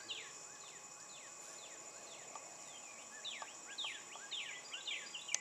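Small birds calling repeatedly in quick downward-sliding notes, more densely in the second half, over a steady high-pitched drone. A single sharp tick comes just before the end.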